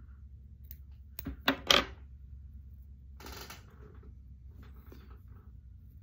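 Handling noise while tying a jig: three sharp clicks or clinks in quick succession about a second in, a brief rustle of fibre material a little past three seconds, and a few faint ticks, over a low steady room hum.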